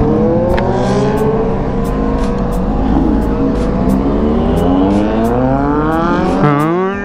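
Several sport-motorcycle engines revving over one another, their pitches rising and falling repeatedly: a revving welcome from the waiting riders.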